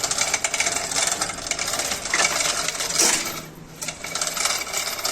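Rapid metallic clattering and clicking from engine workshop work, metal on metal, with a short break about three and a half seconds in.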